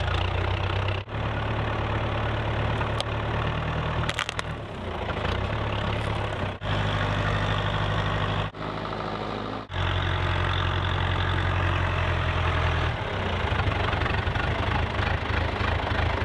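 Two-stroke Stihl chainsaw running steadily, heard in several spliced stretches that cut off and resume abruptly.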